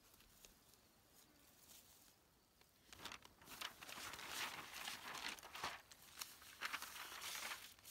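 Sheets of paper rustling and crinkling as they are handled, a run of crisp rustles starting about three seconds in.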